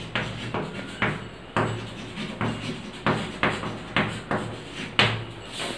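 Chalk knocking and scraping on a blackboard while words are written, about a dozen short, irregular taps.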